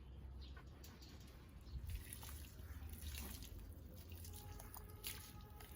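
Water splashing and dripping as a dog is bathed, growing busier about two seconds in.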